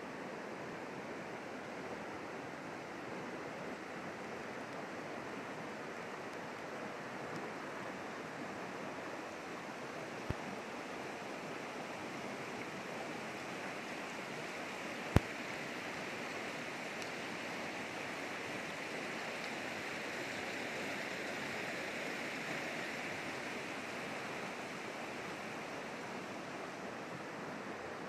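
Shallow creek running over a flat stone bed: a steady rush of moving water, a little louder in the second half. Two brief sharp clicks, the louder one about halfway through.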